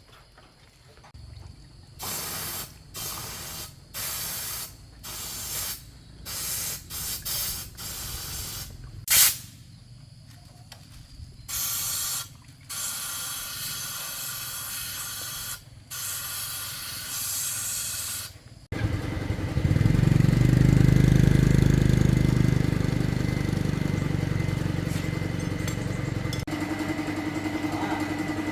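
About a dozen short bursts of spraying hiss over some fifteen seconds, then a motorbike engine catches suddenly near the end and keeps running, its note shifting a couple of seconds before the end.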